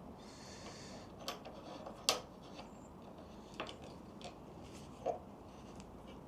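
A few scattered light clicks and taps from a clamp being handled and fitted onto a small metal corner vise, the sharpest about two seconds in.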